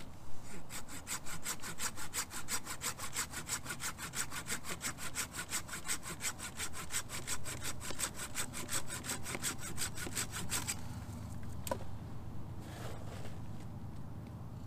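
Hand saw with a curved blade cutting through a dead log for firewood, fast even back-and-forth strokes, about five a second, stopping about four seconds before the end. A single knock follows shortly after.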